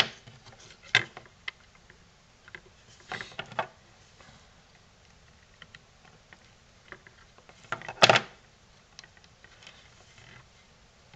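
Scattered small clicks and taps of needle-nose pliers working a fuse's wire lead and a circuit board being handled, with a cluster of taps about three seconds in and one sharper click about eight seconds in.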